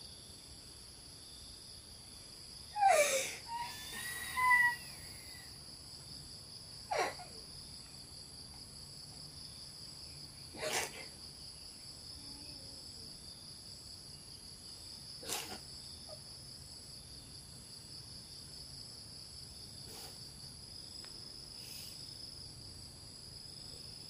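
Insects chirring in a steady, high-pitched drone. Two brief, louder sounds with a sliding pitch come about three and four and a half seconds in, and a handful of short, sharp noises are spread through the rest.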